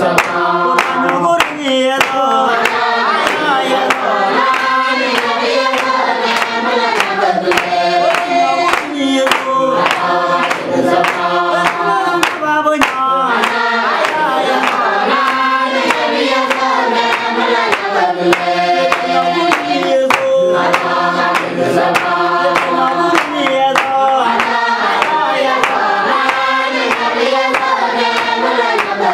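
A group of men and women singing together as a choir, with steady rhythmic handclapping keeping the beat.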